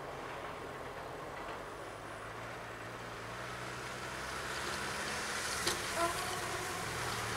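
A car driving over a snowy level crossing toward the listener, its engine hum and tyre noise growing louder, with two short knocks about six seconds in as it crosses the rails.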